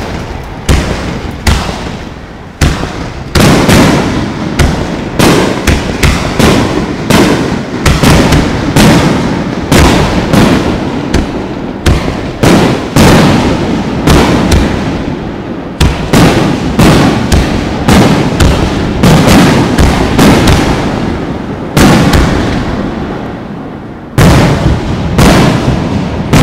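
Aerial firework shells bursting in a rapid, nearly continuous barrage: dozens of sharp bangs, many overlapping, each trailing off into a rolling echo.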